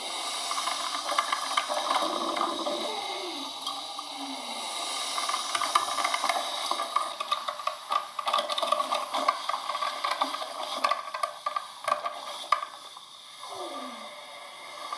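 Coffee machine running: a steady hiss of steam with irregular sputtering crackles and a few short, falling gurgles.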